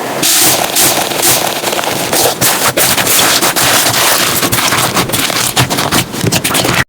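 Slime being squeezed and worked by hand, giving a dense, continuous crackling and popping of many small clicks.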